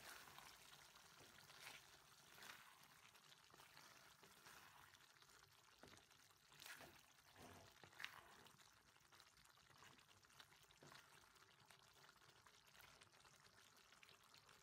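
Faint hiss of pork and long beans simmering in coconut-milk sauce in a wok. A wooden spatula stirring the food adds a few louder wet swishes and scrapes in the first eight seconds.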